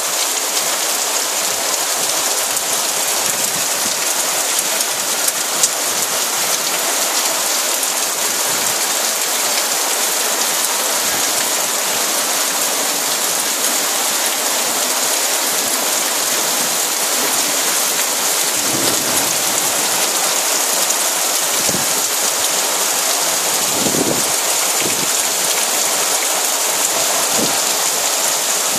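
Heavy rain pouring steadily onto pavement, puddles and tree leaves: an even, unbroken hiss, with a few short low surges in the last third.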